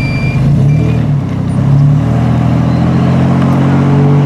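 A vehicle engine running loudly close by, its note wavering in the first second and then holding steady. A reversing beeper sounds twice near the start and then stops.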